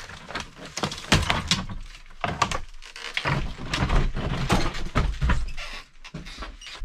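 A removed window frame knocking and scraping against the wooden window opening as it is worked in and out: a busy run of knocks, rattles and heavier thuds.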